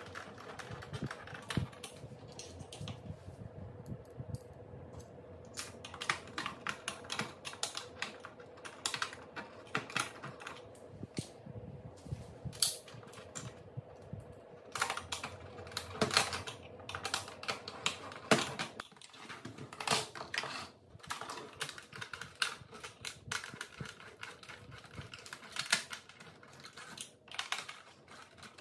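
Hands taking apart the plastic chassis of a Roborock robot vacuum: irregular plastic clicks, taps and rattles as parts are unscrewed, pried and lifted, with a faint steady hum underneath.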